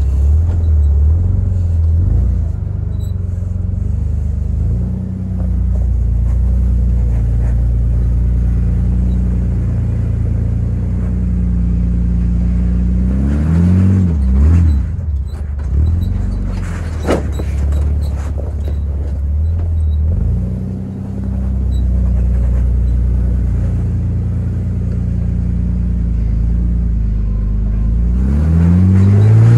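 Jeep Wrangler TJ engine working as the Jeep crawls up a steep rock ledge. It runs steadily, with the revs climbing in short surges about halfway through and again near the end, and a few sharp knocks in the middle.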